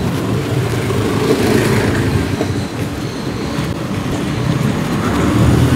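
Busy street traffic noise: a steady, dense rumble of passing vehicles.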